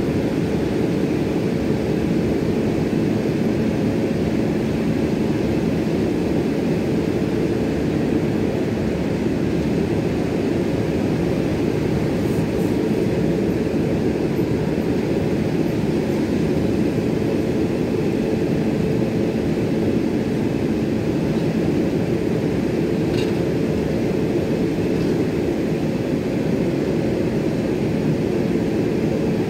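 Passenger coaches of a departing train rolling past on the rails: a steady, unbroken rumble of wheels and running gear.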